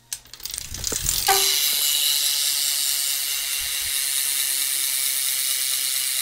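Stolen rear hub on a BMX bike freewheeling, its pawls ratcheting: clicks that speed up over the first second or so, then settle into a loud, steady high buzz.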